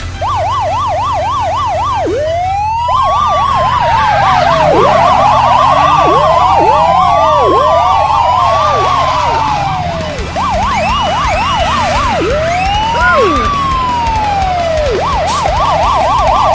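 Several emergency-vehicle sirens sounding at once, a fast yelp overlapping slower rising-and-falling wails, over a steady low engine rumble.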